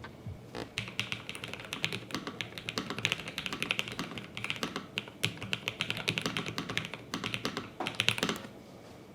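Typing on a Lofree Flow Lite low-profile mechanical keyboard: a quick, uneven patter of key clicks that stops near the end.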